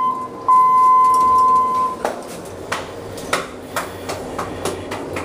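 Electronic beeper of a ThyssenKrupp hydraulic elevator sounding a steady high tone: a brief beep, then one held for about a second and a half. Irregular light clicks and knocks follow, several a second.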